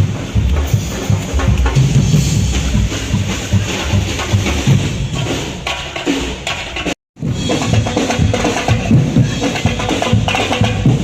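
Background music with a steady drum beat. It cuts out completely for a split second about seven seconds in, then resumes.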